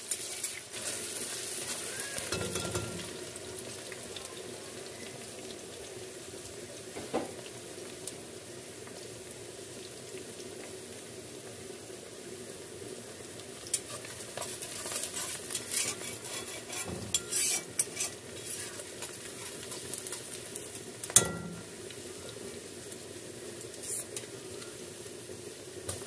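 Hot oil sizzling steadily in a black iron karai as food deep-fries, with a spatula stirring it and knocking and scraping against the pan now and then. The sharpest knock comes late on.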